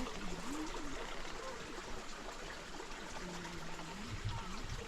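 Running water trickling steadily, like a small stream, with faint voices in the distance.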